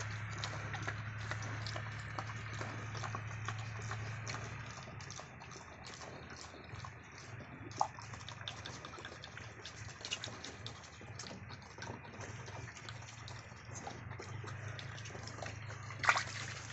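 Piglets eating at a trough: rapid wet slurping and chomping clicks, over a low steady hum. A brief louder noise comes near the end.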